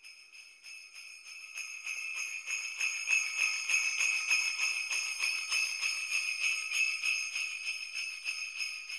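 Jingle bells shaken continuously in a rapid jingling shimmer, swelling over the first few seconds and easing off near the end.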